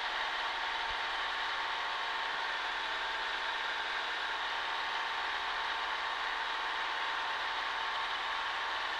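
Cessna 140A's engine and propeller droning steadily in cruise flight, heard from inside the cockpit.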